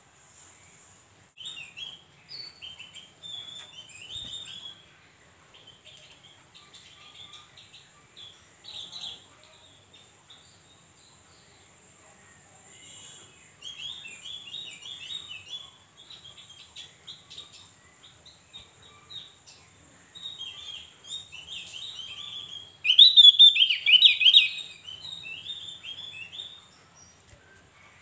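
Javan grey-throated white-eye (opior Jawa) singing: bursts of quick, high chirping phrases with short pauses between them, the loudest burst coming late on. A faint steady high whine runs underneath.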